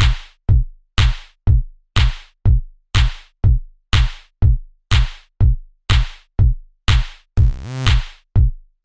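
Electronic background music stripped down to a drum-machine beat, about two drum hits a second. A short pitched synth phrase returns near the end.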